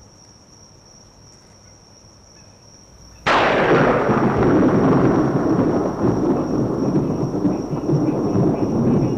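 A thunderclap sound effect: a sudden crack about three seconds in, then a long rolling rumble that carries on loudly.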